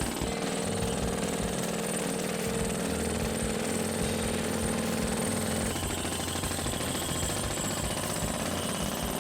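Shakti 341 crawler drill's percussive rock drill hammering rapidly and continuously. A steady machine hum under the hammering stops about six seconds in.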